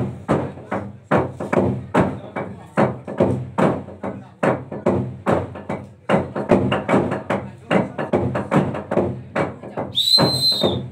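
A large hollowed-out log drum is pounded by many people with wooden beaters: rapid, uneven strokes, several a second, each with a short hollow ring. Near the end a whistle blows once briefly.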